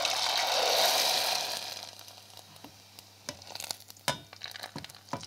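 Dry mung bean glass noodles (funchoza) dropped into very hot deep-frying oil: a loud burst of sizzling that fades over about two seconds as the noodles puff up. Scattered crackling and a few sharp knocks follow.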